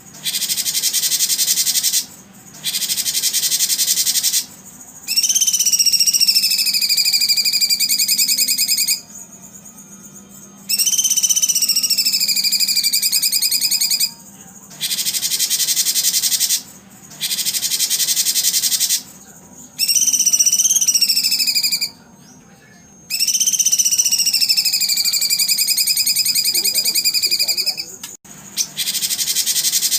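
Dense high insect-like buzzing that stops and starts every two seconds or so, with four long whistled bird calls laid over it, each dipping in pitch and then levelling out.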